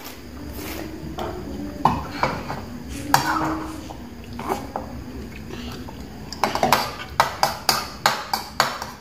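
Metal spoons clinking and scraping against bowls as food is scooped: a few single clinks, then a quick run of clinks, about four a second, over the last few seconds.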